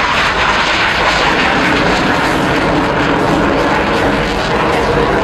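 Hawker Hunter jet flying past, its Rolls-Royce Avon turbojet making loud, steady jet noise. The noise deepens somewhat in the second half as the jet moves away.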